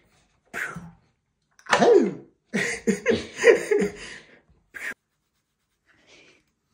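A man's wordless vocal outbursts: a short breathy huff, a cry that falls in pitch, then a run of broken laughter between about two and a half and four and a half seconds in.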